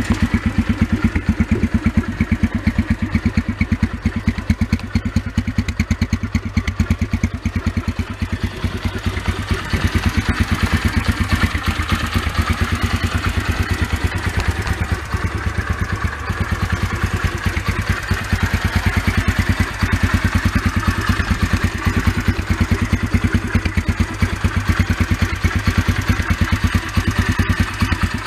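2013 Yamaha TT-R125's single-cylinder four-stroke engine running steadily near idle, a fast, even popping. It is warming up on freshly changed oil so the new oil circulates.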